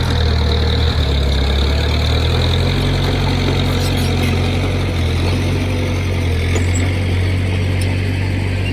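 Diesel engine of heavy earthmoving machinery running steadily at low revs, a deep continuous drone whose pitch shifts slightly now and then.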